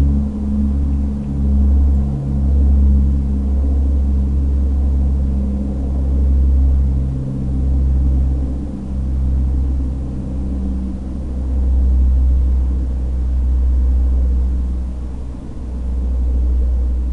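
Low drone of a propeller-driven airplane flying overhead: a few steady humming tones over a heavy low rumble. The tones fade out about two-thirds of the way through while the rumble goes on.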